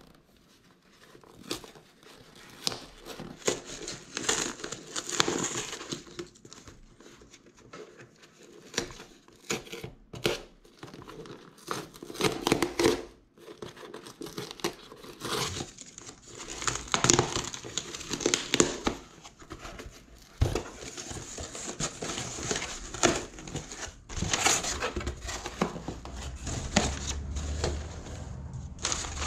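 Cardboard shipping box being opened by hand: packing tape and cardboard ripped and torn in irregular bursts, then crumpled kraft paper packing rustling near the end.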